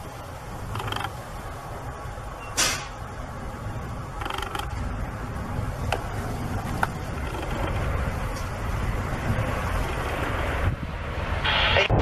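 Wind buffeting the microphone over the low rumble of a twin-engine jet airliner landing in a strong crosswind. There are a few brief gusts or scrapes, and the noise grows louder toward the end.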